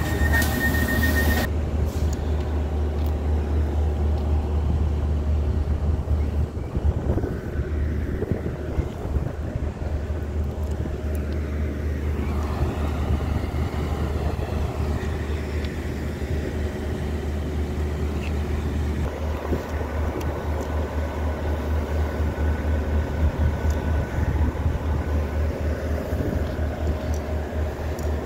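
Irish Rail 2800 Class diesel railcar standing at a platform with its engine idling: a steady low rumble. A short high beep and a rush of noise come in the first second as the door opens.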